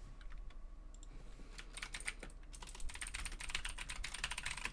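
Typing on a computer keyboard: a few scattered keystrokes at first, then a quick run of fast keystrokes from about two seconds in.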